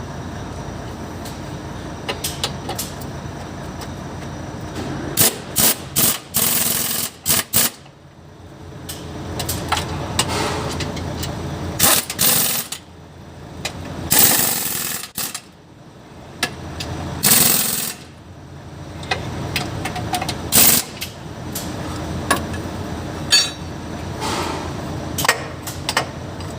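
Pneumatic impact wrench running in short, loud bursts, about six times, with metallic clicks in between, over a steady workshop hum.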